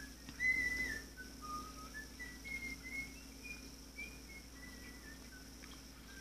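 A high, whistle-like melody of about a dozen short notes that glide up and down, from an animated film's soundtrack heard through a television's speaker. The first, longest note near the start is the loudest.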